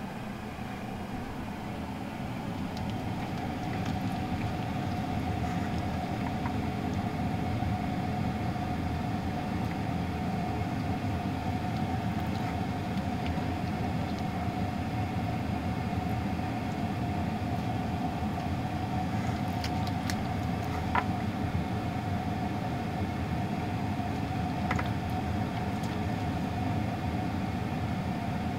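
Steady low mechanical rumble with a faint steady hum, getting a little louder a few seconds in, and a couple of light clicks in the second half.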